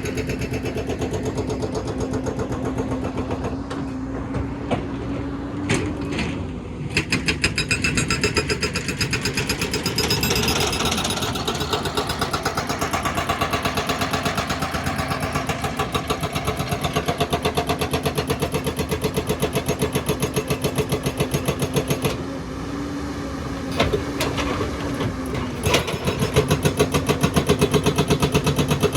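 Excavator's diesel engine running steadily at work, with a steady whine that rises briefly twice.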